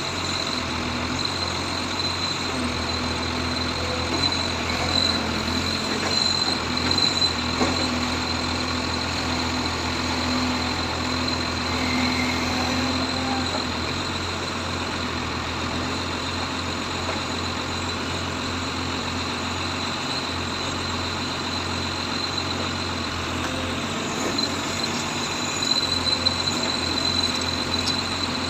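Case 770 EX backhoe loader's diesel engine running steadily, with a steady high whine over it. It swells a little a few seconds in and again near the end.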